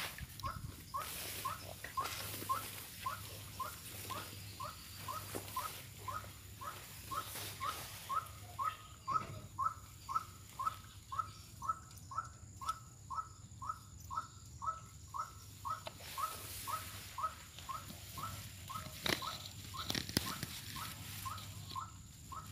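White-breasted waterhen calling: a steady series of short, clipped notes, about two a second, kept up without a break.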